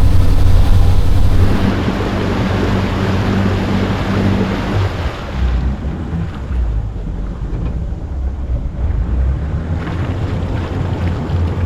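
Amphibious all-terrain vehicle's engine droning steadily while the vehicle swims across a river, with water rushing around the hull. About five seconds in, the rushing fades and the engine note drops lower.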